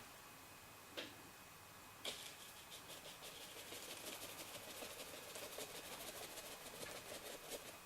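Two light knocks, then a faint run of quick, scratchy paintbrush strokes on a painting board as paint is worked on.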